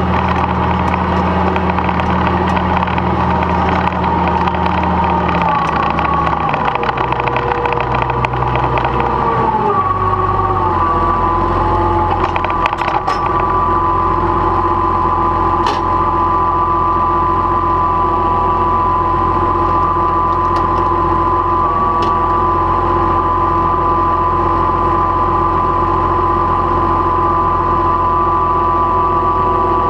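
Old farm tractor's engine running as it drives. The engine speed drops in two steps over the first ten seconds, then it idles steadily.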